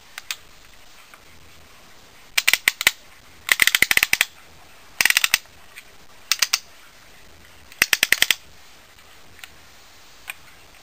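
Blue plastic toy gun's mechanism clicking, most likely its trigger clicker worked by hand: five short bursts of rapid, sharp plastic clicks a second or so apart.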